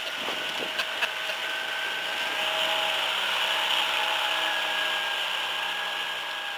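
Small tiller outboard motor pushing a skiff under way: a steady whine over a hiss of water and air. It grows a little louder a couple of seconds in, then fades out near the end.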